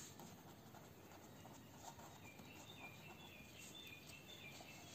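Near silence: room tone, with faint, short, high chirps repeating from about two seconds in.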